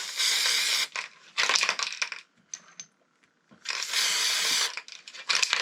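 Aerosol can of anti-rust spray sprayed onto engine head bolts in three short bursts, with light metallic clicks of the bolts being handled between the bursts.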